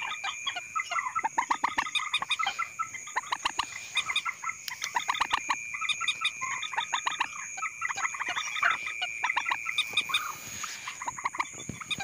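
Common moorhen calls, played as a lure: rapid runs of short clucking notes repeating over and over, with a steady high whine beneath.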